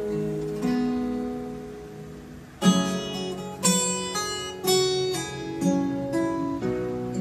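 Instrumental music: a plucked guitar line that softens over the first couple of seconds, then louder plucked notes struck about once a second.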